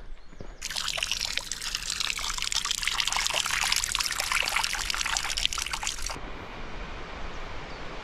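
A thin stream of water pouring off a log and splashing onto loose slate chips and leaves: a dense spattering trickle that starts about half a second in and cuts off suddenly about six seconds in, giving way to a fainter steady hiss.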